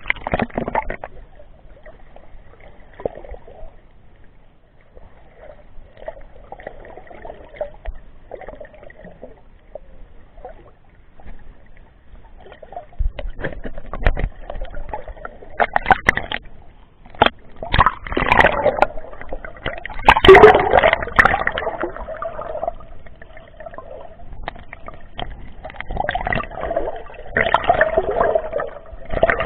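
Sea water sloshing and gurgling around a camera in a waterproof housing as it moves through the waves and dips underwater, with irregular sharp knocks on the case. It grows louder about two-thirds of the way in and again near the end.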